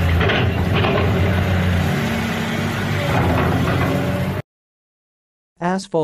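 Excavator engine sound effect: a heavy machine's engine running steadily with a deep hum and a few knocks, cutting off suddenly about four and a half seconds in.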